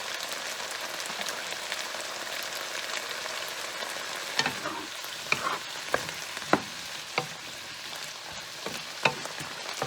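Vegetables sizzling in a frying pan, a steady hiss. From about four seconds in, a utensil knocks against the pan about eight times as the stir-fry is stirred.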